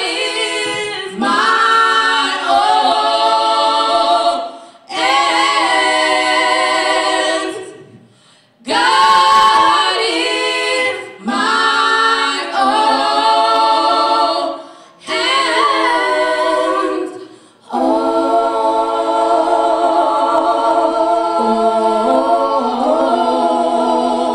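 A female gospel trio singing a cappella in close three-part harmony, amplified through handheld microphones, in phrases of a few seconds broken by short breaths. In the last six seconds or so they hold one long closing chord, which fades right at the end.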